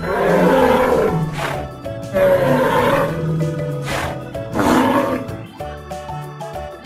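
Three dinosaur roar sound effects, each a loud growling swell lasting one to two seconds, over background music.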